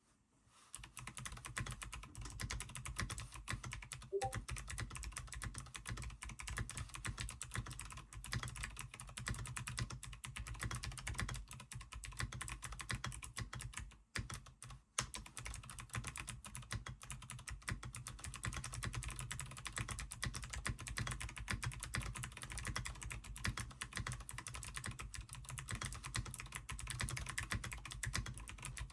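Fast, continuous typing on a NovelKeys Classic TKL mechanical keyboard with Gateron Melodic switches: a dense patter of key clicks, with a brief pause about halfway through.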